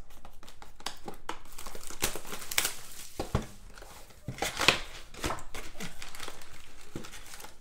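A sealed 2020 Panini Select baseball card box being unwrapped and opened: wrapping and cardboard crinkling and tearing in a run of irregular crackles, with a few sharper tears or snaps along the way.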